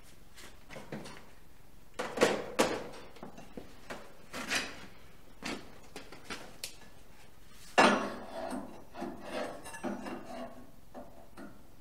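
Metal parts knocking and clattering as a stay bar is fitted to a tractor's rear linkage: a series of sharp knocks with some scraping, the loudest about two seconds in and again near eight seconds in.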